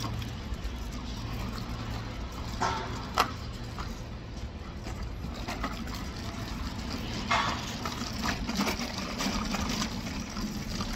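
Steady low hum of city street traffic, with a few short knocks or clatters.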